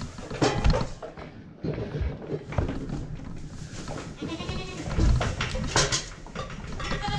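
Boer goats bleating, a few quavering bleats, with low thumps scattered between them.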